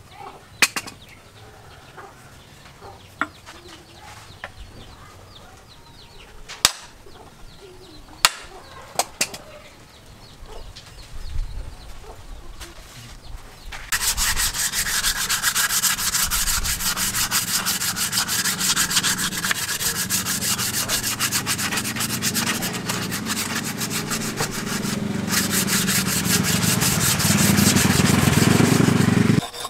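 Wooden axe handle being hand-sanded with sandpaper: loud, quick back-and-forth rasping strokes that start about halfway through and carry on almost to the end. Before that it is quiet, with a few sharp knocks.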